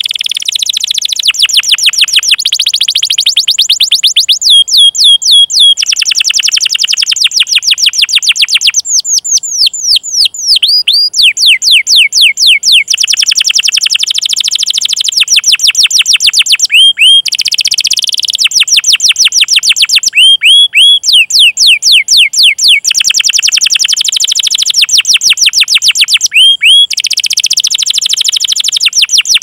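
Domestic canary singing: long rolling trills, very fast and rapid-fire, alternating with runs of sharp, repeated down-sweeping 'cuit cuit' chirps.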